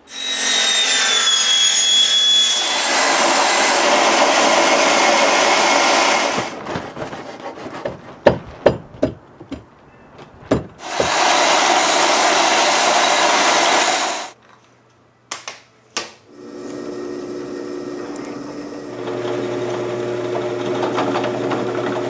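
A power saw cuts through black plastic pipe in two long stretches, with knocks of the pipe being handled between them. Then a drill press motor runs steadily, drilling holes in the pipe.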